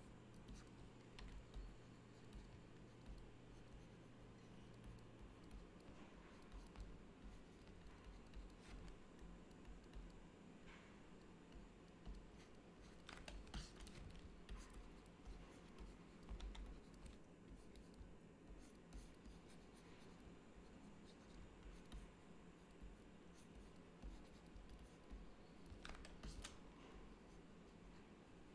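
Faint scratching of a stylus on a drawing tablet, with occasional small clicks, over a low steady room hum.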